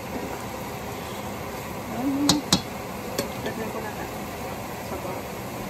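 A spatula stirring vegetables in a stainless-steel pan, then two sharp knocks on the pan about two seconds in and a lighter one just after, as the spatula is tapped off and set down. A steady hiss from the cooking pan runs underneath.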